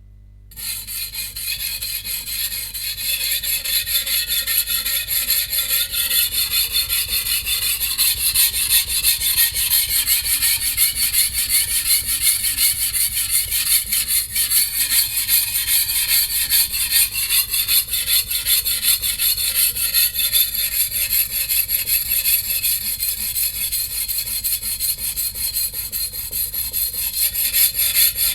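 VG10 stainless steel Chinese cleaver blade rubbed back and forth on a wet coarse 180-grit whetstone in rapid, even strokes, grinding out edge chips. The gritty scraping starts abruptly about half a second in and keeps an unbroken rhythm.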